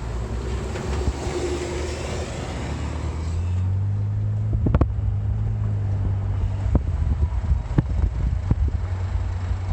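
A 2007 BMW 525xi heard through its open window while slowing: wind and road rush, then a steady low drone with sharp ticks about a second apart. The ticking follows road speed, not engine speed, and the owner suspects an early-failing CV axle.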